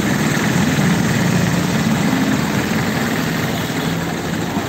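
A motor vehicle's engine running steadily at low revs, a loud, even rumble.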